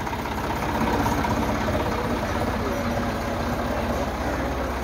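Massey Ferguson 260 Turbo tractor's three-cylinder diesel engine idling steadily.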